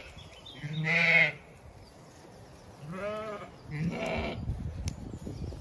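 Zwartbles sheep bleating three times: one loud call about a second in, then two more close together around three and four seconds in.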